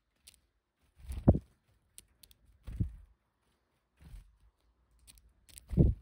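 Varied tit's wingbeats close to the microphone as it flutters on and off a hand: three low thumps about a second and a half apart and a fainter one, with light sharp clicks between them.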